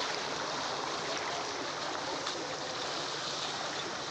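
Floodwater of a swollen river rushing steadily.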